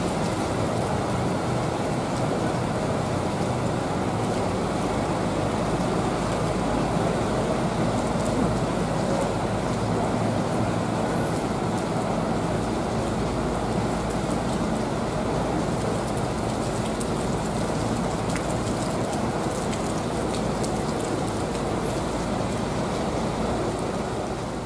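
Steady heavy rain on wet pavement, mixed with the low running of bus engines as buses move slowly out.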